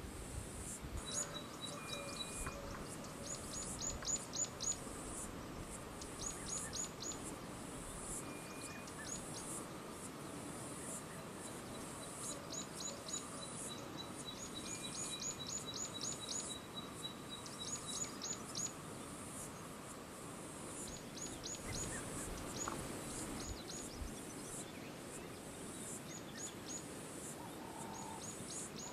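Field ambience of birds calling: quick runs of short, high, falling chirps repeated every second or two, with a long rapid ticking run in the middle, over a steady high hiss.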